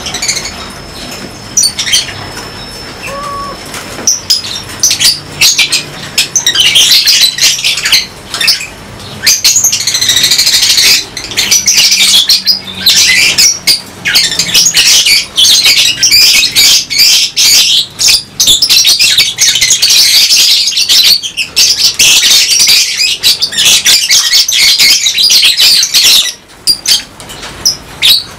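A colony of lovebirds chattering, a dense din of high, shrill calls. It is sparse at first and fills in after about four seconds.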